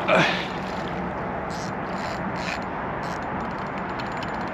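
Steady water and wind noise around a kayak while a hooked carp fights at the surface close to the boat, with a few brief soft splashes and a rapid fine ticking near the end.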